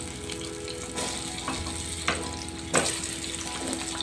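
Hot oil sizzling in a kadhai as stuffed pointed gourds (parwal) go in to fry, with a few sharp crackles.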